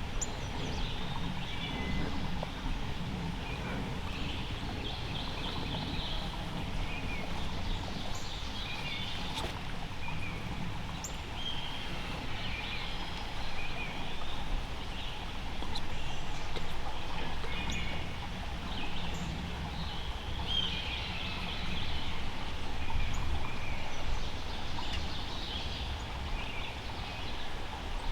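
Wild turkeys gobbling and calling, with many short bird calls scattered throughout over a steady low rumble.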